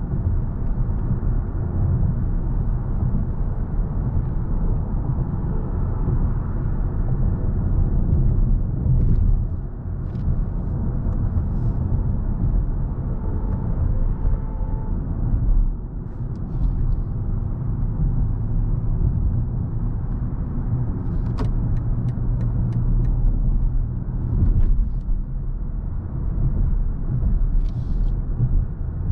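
A 2023 BMW i7 xDrive60 electric sedan driving, with a steady low rumble of road and tyre noise and no engine sound. About two-thirds of the way in comes a short run of quick clicks.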